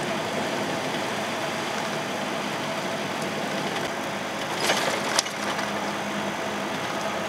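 Volvo truck's diesel engine and road noise heard from inside the cab while driving, a steady hum. A short rattle ending in a sharp click comes about five seconds in.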